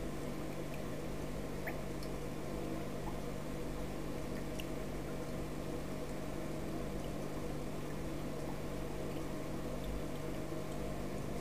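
Turtle tank's water filter running: a steady low hum with faint trickling water and a few small scattered ticks.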